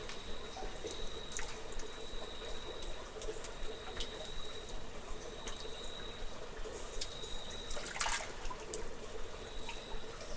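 Water trickling and dripping inside a cave, with scattered sharp drips and a stronger splash about eight seconds in, over a thin steady high-pitched tone.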